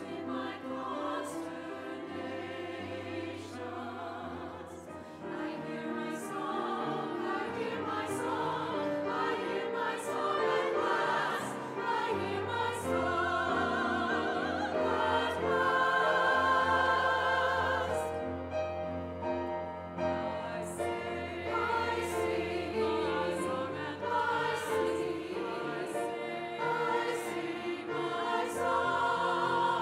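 Women's choir singing together with piano accompaniment.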